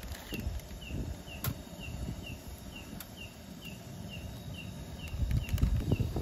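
A small creature's short chirp repeating evenly about twice a second, each chirp dipping slightly in pitch. Under it are irregular low thumps and rustling, which grow louder about five seconds in.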